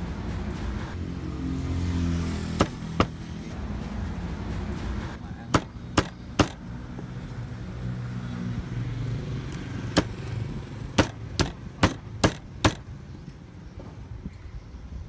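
Meat cleaver chopping through a boiled duck on a round wooden chopping board: about eleven sharp chops in three bunches, the fastest run of about two a second near the end.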